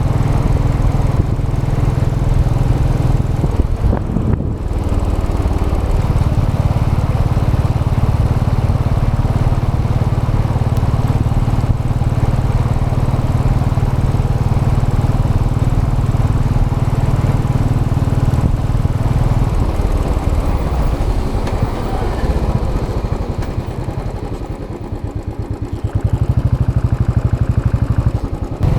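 Royal Enfield Classic 500 EFI's single-cylinder engine with its stock exhaust, running under way on the road with a steady low beat. About three-quarters through, the throttle eases off and the sound drops, then it picks up again near the end.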